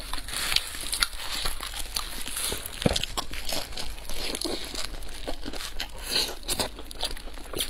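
Crunching and crackling of a crisp fried pancake wrap being torn and bitten, with chewing and the crinkle of plastic gloves handling it; many quick crackles throughout, with one sharper snap about three seconds in.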